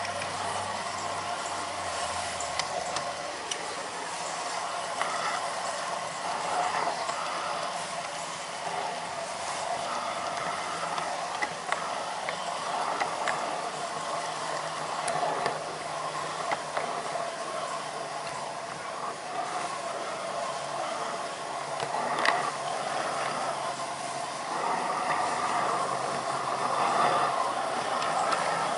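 Garden-scale model train running along outdoor track: a steady rumble with many small clicks from the wheels, and one sharper click about two-thirds of the way through.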